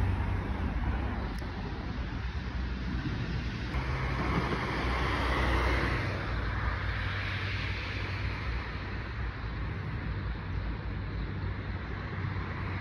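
Street traffic noise: a steady rumble of passing road vehicles, swelling as something passes about halfway through, then easing.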